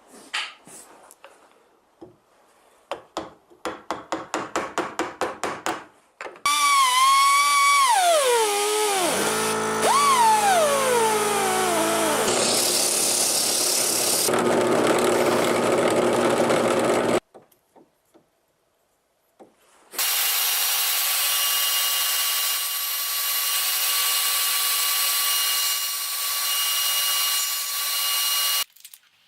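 Rhythmic hand strokes on wood, about three a second, like sanding or rasping. Then an electric power tool runs, its pitch sliding down and back up as the speed changes, and after a short pause it runs again at a steady speed until it stops near the end.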